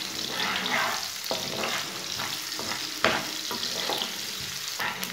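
Sliced onions and cumin seeds sizzling in hot oil in a non-stick frying pan, at the start of being lightly browned. A slotted spatula stirs them in repeated scraping strokes, with a few sharp taps against the pan.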